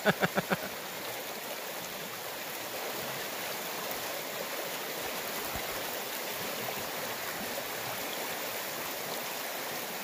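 Shallow river water flowing steadily over a cobbled bed, an even rushing hiss. A brief burst of a person's voice at the very start.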